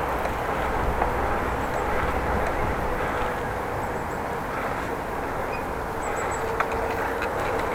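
Steady rolling and wind noise of a bicycle being ridden, with a few faint, irregularly spaced ticks.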